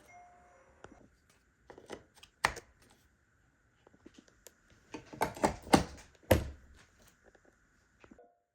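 Handling noises: scattered knocks and clicks, the loudest a cluster of hard knocks about five to six and a half seconds in, over a faint steady high hum that cuts off near the end.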